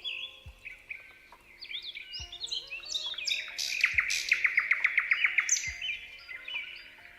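Several birds chirping and whistling together, with one bird giving a fast trill of about ten quick notes in the middle. Soft background music runs underneath, with a low beat about every second and a half.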